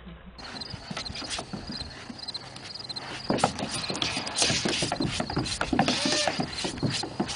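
Kitten's claws tapping and scrabbling on a plastic playground slide, a dense run of small clicks and knocks that grows louder about halfway through, with crickets chirping faintly behind.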